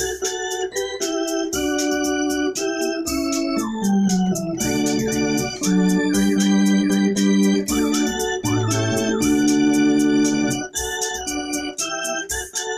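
Electronic arranger keyboard played with an organ voice: a hymn tune in sustained chords over a bass line, with a few notes gliding in pitch in the middle of the passage.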